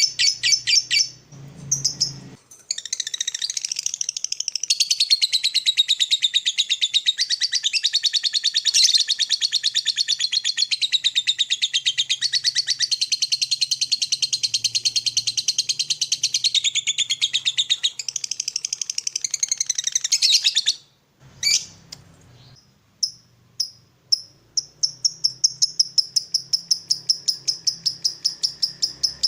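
Lovebird ngekek: a long, rapid, high-pitched chattering trill of evenly repeated notes, running unbroken for about eighteen seconds, then breaking off; after a short pause with a few single chirps, another rapid trill starts.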